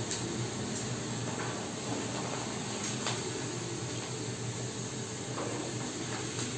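Moong dal sizzling as it deep-fries in hot oil inside a mesh strainer: a steady hiss with a few faint crackles.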